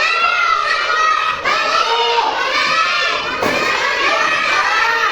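A class of young children calling out together and over one another, naming words that begin with the letter L.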